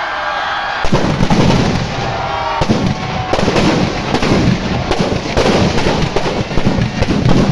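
Firecrackers packed inside a burning Ravan effigy going off in a dense, rapid barrage of cracks and bangs, starting about a second in.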